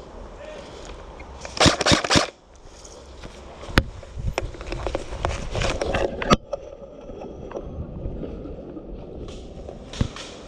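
Airsoft gunfire in single sharp cracks, a few seconds apart, amid rustling and handling noise from a player moving in kit; the loudest moment is a short cluster of rough bumps and rustle about two seconds in.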